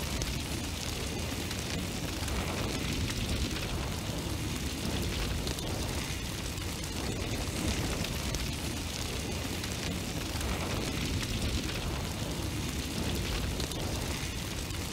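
A steady, deep rushing noise with no tune and no voice in it.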